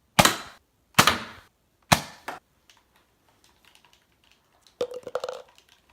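Nerf blaster firing: three sharp shots about a second apart, each with a short tail. Faint clicks follow, and a brief cluster of light knocks near the end.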